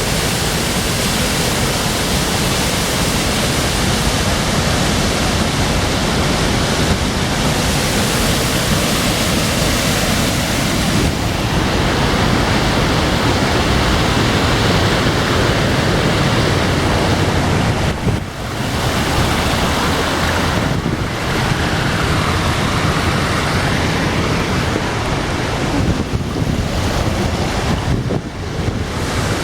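Loud, steady rush of a waterfall close by, briefly dipping a few times.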